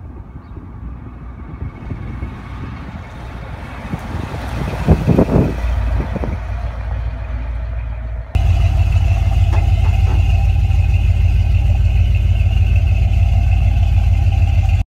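1979 Chevrolet C10 pickup's 350 small-block V8 through Flowmaster street mufflers, growing louder as the truck drives up and passes about five seconds in. After a sudden cut it gives a steady, loud exhaust note as it drives off, then stops abruptly.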